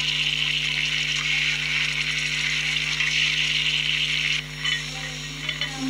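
Frying-pan sizzle with stirring, a steady hiss that drops away sharply about four and a half seconds in, followed by a few light clicks, over a faint steady low hum.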